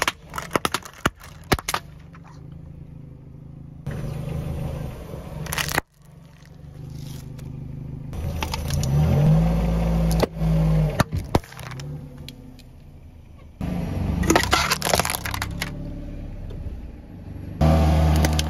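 A car tyre rolling over and crushing small plastic creamer cups and an aluminium soda can in separate passes. Clusters of sharp cracks and pops sound over the car's low engine hum.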